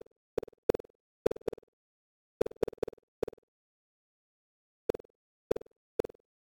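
Computer-generated bounce sound effects: about a dozen short, sharp mid-pitched knocks, each dying away within a fraction of a second. They come at irregular intervals, several in quick succession during the first three and a half seconds, then three more after a pause of over a second, with dead silence between.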